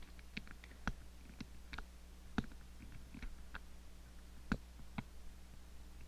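Lock pick and tension wrench working the levers of an Ingersoll 10-lever padlock: faint, irregular small metallic clicks and ticks, about ten of them, with a few sharper ones.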